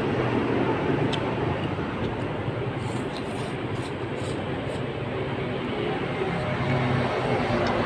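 Steady rushing background noise, with a few light clicks.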